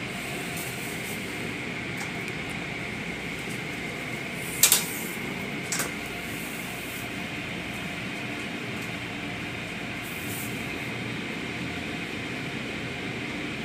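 Automatic car wash heard from inside the car: cloth wash strips brushing over the windshield with steady machinery and water noise. Two brief louder hisses come about four and a half and six seconds in.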